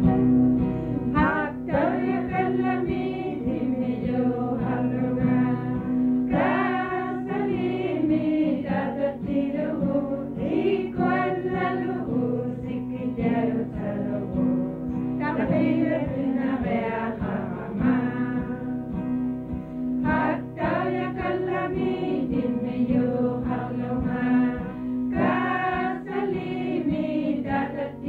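A children's song sung in Inuktitut by a group of voices, accompanied by guitar.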